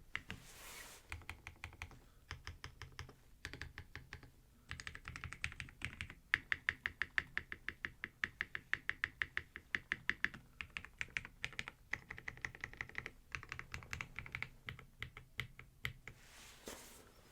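Fast typing on a custom Geonworks F1-8x mechanical keyboard with lubed frankenswitches (NK Cream stems, Tangerine bottom housings, Gateron Milky tops) on an aluminium plate, with GMK keycaps: a rapid run of keystroke clacks broken by a few short pauses.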